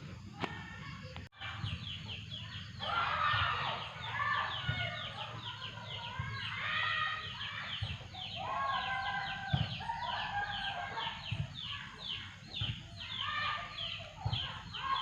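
Chickens clucking and calling, many quick falling calls overlapping one another, starting about three seconds in and going on continuously.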